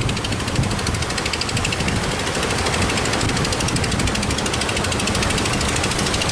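Strong wind and surf at the shore as a loud, steady rushing noise, under a fast, even rattling pulse.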